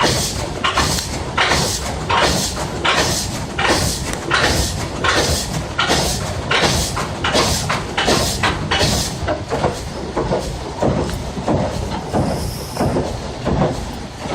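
Water-powered up-and-down sash saw cutting through a log, each stroke rasping at about two and a half strokes a second. The rasp grows weaker after about nine seconds.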